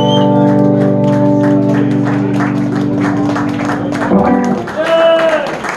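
A live band's final chord ringing out and held, over audience applause; the chord stops about four seconds in and the clapping carries on.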